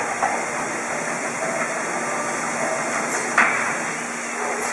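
Rotary milking parlour machinery hissing steadily, with a sharp metallic clank about three and a half seconds in.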